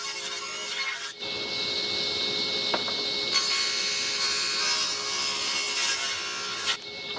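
Bandsaw cutting wood, its motor humming steadily under the hiss of the blade in the stock. The cut breaks off briefly about a second in, grows louder from about halfway, and stops shortly before the end.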